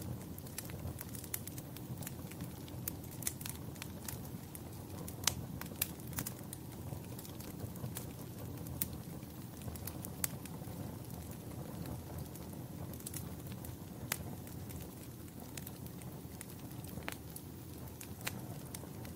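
Wood fire burning in a fireplace: a steady low rumble of the flames with irregular sharp crackles and pops scattered throughout.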